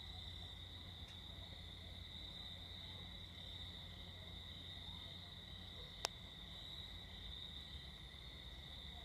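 A faint, steady, high-pitched chorus of night insects, with one sharp click about six seconds in.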